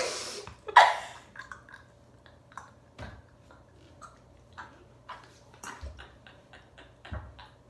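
Stifled laughter: two sharp breathy laughs in the first second, then a quiet stretch of soft, irregular mouth clicks and breaths from girls trying to hold it in.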